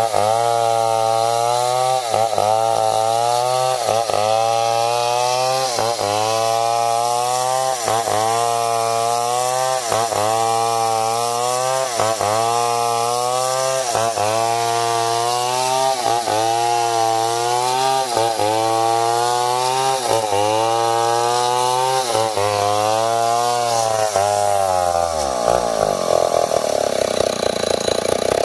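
Stihl 070, a large two-stroke chainsaw, running at high revs while cutting, its pitch sagging and recovering in a regular rhythm about every second and a half. Near the end the revs drop away steeply as the throttle is let off.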